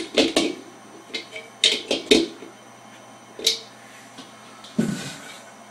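Sharp clicks and clacks of hand tools and metal smoker parts being handled during assembly, coming in short clusters about every second and a half.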